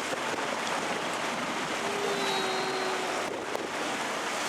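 Steady rush of wind and water noise from an open canal tour boat under way, with its motor faintly in it.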